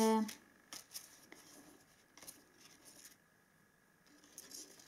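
Faint paper-handling sounds as fingers move a thin quilling-paper strip and press it onto card stock: a few scattered light taps and a soft rustle near the end.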